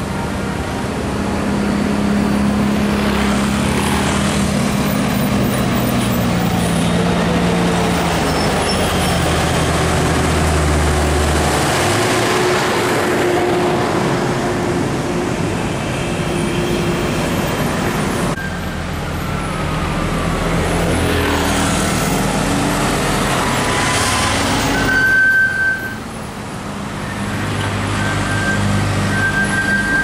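Heavy road traffic with buses passing close by: diesel engines running and tyre noise swelling and fading as each goes past. One engine's note falls steadily through the first dozen seconds, and a short high steady tone sounds near the end.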